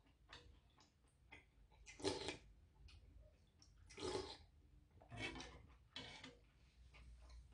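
Metal spoon clinking against a saucepan of soup, with about four short slurps of broth from the spoon.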